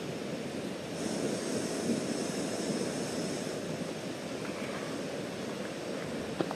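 Isobutane canister backpacking stove: gas hisses at the burner for a couple of seconds, starting about a second in, as the valve is opened and the stove is lit. Under it runs the steady rush of a creek, and there is one sharp click near the end.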